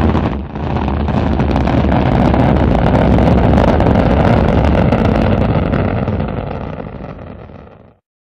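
Rocket engine firing, a loud steady rumble that starts with a sudden burst, then fades away over the last two seconds or so and stops.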